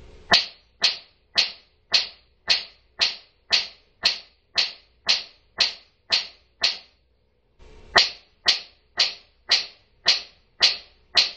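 Transversely excited atmospheric (TEA) laser firing: high-voltage sparks jump through room air between its copper electrode rods, each a sharp crack, repeating about twice a second. The cracks stop briefly about two-thirds of the way through, then start again.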